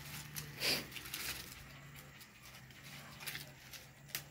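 Young Vietnamese hunting dogs moving about in dry leaf litter, with a few short, sharp rustles and scuffs. The clearest comes less than a second in.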